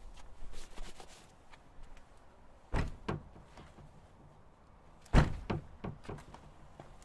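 A body thudding against a wooden door: two heavy impacts, about three and five seconds in, each followed by one or two lighter knocks as the door rattles. Fainter knocks and shuffles come in the first second.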